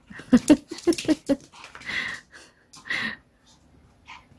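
A person laughing in a quick run of short bursts, then two breathy huffs.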